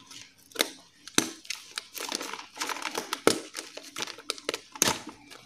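Clear plastic packaging crinkling and crackling as it is peeled back and pulled open by hand. Sharp crackles are loudest about a second in, just after three seconds and near the end.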